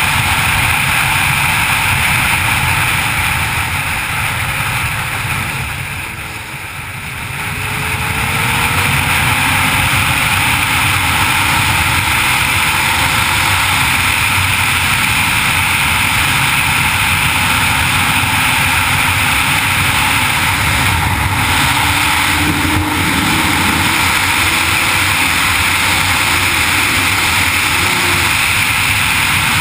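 Wind rushing over the camera on a 1994 Honda CBR600F2 at road speed, with its inline-four engine faintly under it. The wind noise dips for a couple of seconds about six seconds in, then returns.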